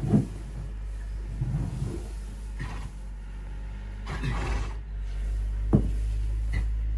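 A foaling mare lying in straw, breathing hard with low grunts as she strains and shifts in the rustling bedding, with a couple of sharp knocks near the end, over a steady low hum.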